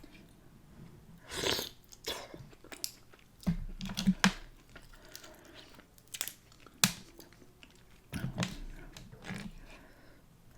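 Close-miked eating sounds of a person chewing a spicy seafood boil, with wet mouth smacks and sharp clicks at irregular moments.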